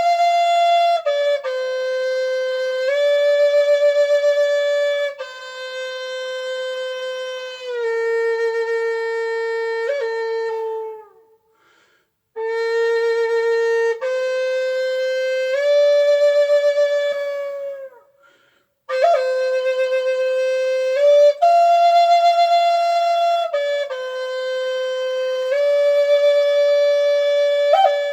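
Solo flute playing a slow melody of long held notes in three phrases separated by short pauses, each phrase ending with a downward slide in pitch.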